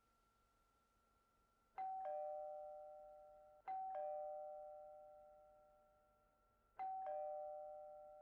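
Two-tone doorbell chime rung three times, each a ding-dong of a higher note then a lower one, ringing out and fading. The second ring comes quickly after the first, the third after a longer pause.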